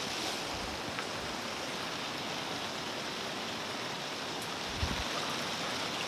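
Steady rain falling, pattering on the surface of a garden pond and the ground around it. A brief low thump comes near the end.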